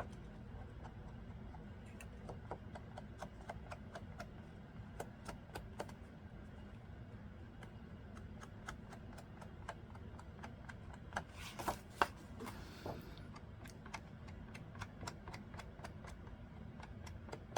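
Many light, irregular clicks and taps of small craft items being handled on a tabletop, with a brief rustle about eleven seconds in.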